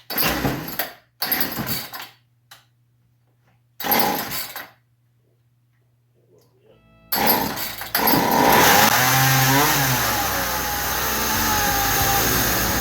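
Poulan Pro 210 chainsaw pull-started three times, catching for about a second each time and dying out, the sign of a saw that won't stay running. Music comes in about seven seconds in.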